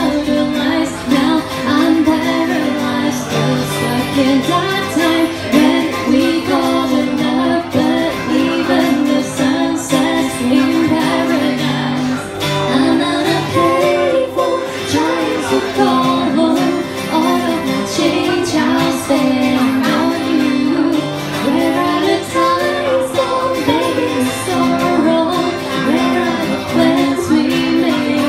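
A woman singing to her own acoustic guitar strumming.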